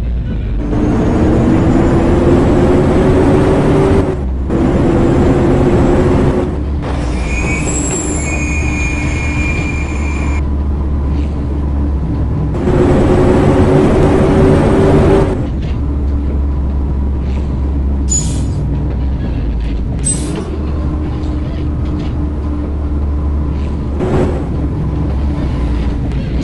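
A heavy vehicle running with a loud low rumble and a steady humming tone, with high-pitched squeals for a few seconds about a third of the way in; the sound changes abruptly several times.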